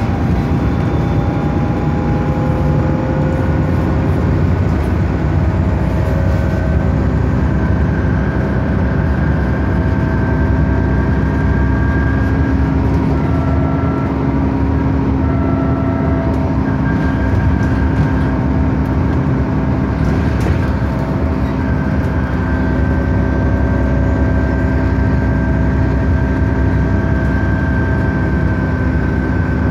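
Diesel bus engine and drivetrain running steadily under way, heard from inside the bus, with a low rumble and a steady whine that shifts slightly in pitch.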